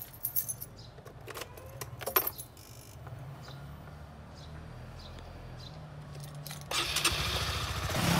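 A few metallic jangles and clicks like keys, then a motorcycle engine running steadily, growing much louder over the last second and a half.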